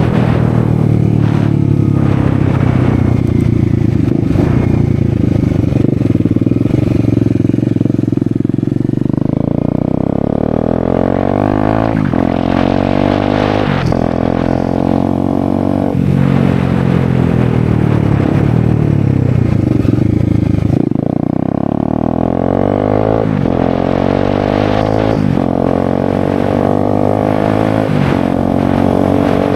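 Bajaj Dominar 250's single-cylinder engine running loud with its exhaust end can removed, accelerating under way. The pitch climbs and then drops at each gear change, several times over.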